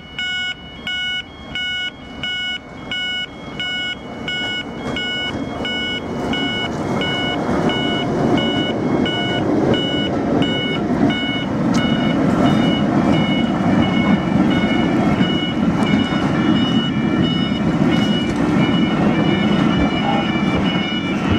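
Level crossing alarms beeping in a steady on-off pulse, about two a second, which the uploader calls very faulty. A train hauled by a Class 08 diesel shunter passes over the crossing: a rumble of engine and wheels builds from about six seconds in and becomes louder than the alarms.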